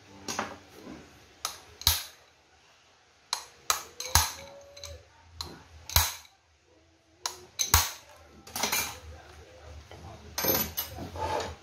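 Metal hand tools and drill bits clinking and clanking as they are picked up and set down on a tool-strewn workbench. There are about a dozen separate sharp clanks at irregular intervals, some with a short metallic ring.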